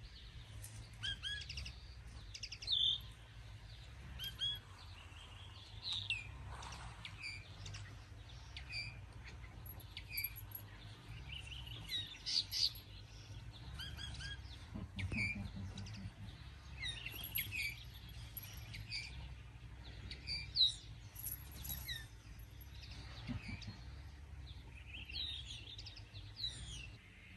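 Small songbirds chirping and singing, many short calls and trills scattered throughout, over a steady low rumble.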